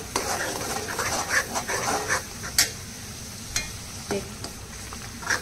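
A spoon stirring and scraping green masala paste in a kadhai while the paste sizzles steadily in hot oil. The strokes come thick for about the first two seconds, then thin out to a few separate clicks. The masala is not yet fried through.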